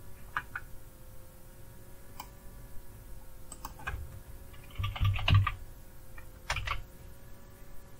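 Computer keyboard typing and clicking: a few scattered clicks, then a short run of keystrokes about five seconds in, over a faint steady hum.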